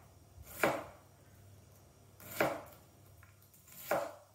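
Chef's knife dicing an onion on a plastic cutting board: three separate knocks of the blade meeting the board, each a second and a half or more apart.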